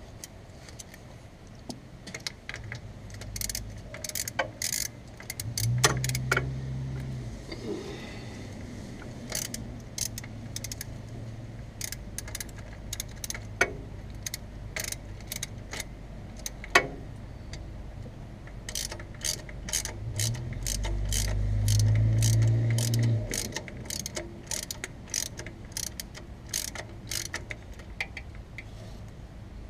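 Ratchet wrench clicking in quick runs while the fuel pump's retaining bolts are run in, with scattered metal taps. Twice, once early and once past the middle, a low hum swells for a second or two.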